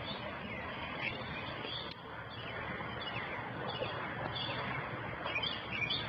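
Birds chirping now and then over a steady background hiss of outdoor air.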